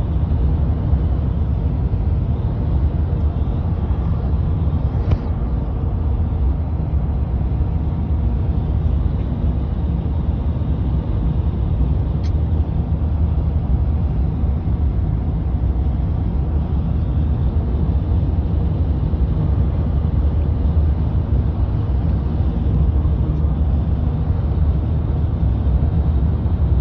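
Steady low rumble of road and engine noise inside a moving car's cabin at cruising speed.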